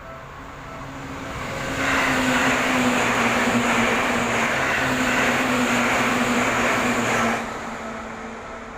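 Seibu Shinjuku Line train passing over a level crossing: the noise builds over the first two seconds, stays loud for about five and a half seconds with a steady low hum, then drops off sharply. The crossing's warning bell rings faintly before and after the train.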